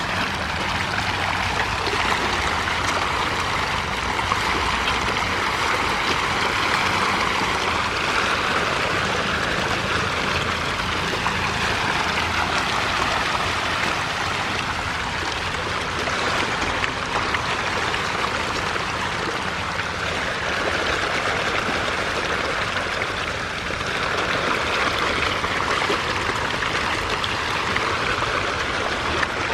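A dense mass of hybrid magur catfish splashing and churning at the pond surface as they feed on floating pellets. It makes a continuous rushing, stream-like water noise that swells and eases slowly, with no separate splashes standing out.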